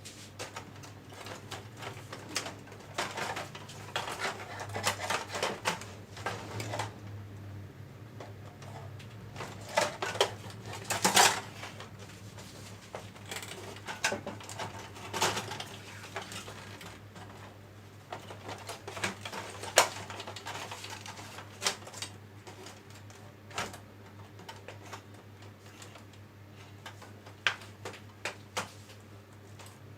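Irregular clicks, taps and small clattering knocks of plastic and metal parts and tools being handled as a projector is taken apart, over a steady low hum.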